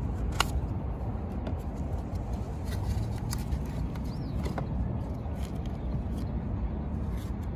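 Small cardboard headlight-bulb boxes and their paper inserts being handled and opened, giving a few light clicks and rustles over a steady low outdoor rumble.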